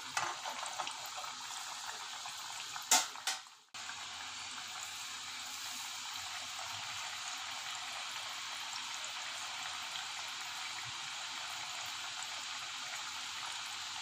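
Kai murukku deep-frying in hot oil in a frying pan: a steady sizzling hiss of oil bubbling hard around the dough, the sign that the murukku are still cooking. A couple of sharp knocks sound about three seconds in, and the sound cuts out for a moment just after.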